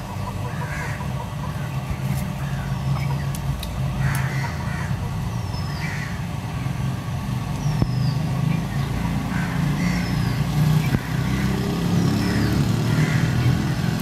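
A motor vehicle's engine running steadily, rising in pitch in the second half, over chickens clucking and a small bird repeating a short falling chirp about once a second.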